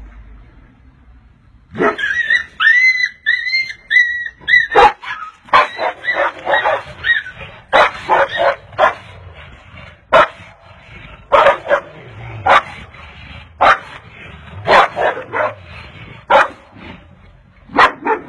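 A dog barking: a few high, wavering yelps about two seconds in, then a long run of short, sharp barks repeating every second or so.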